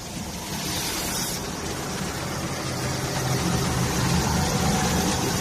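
Metal sanding machine running: a steady motor hum under an even hiss, growing slightly louder.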